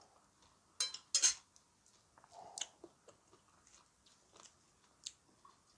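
A person biting and chewing crunchy food close to the microphone. There are two sharp loud crunches about a second in, then softer chewing clicks.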